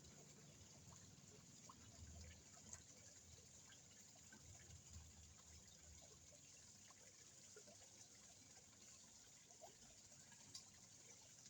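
Faint trickling water in a small koi pond, with a few scattered small ticks and plops at the surface.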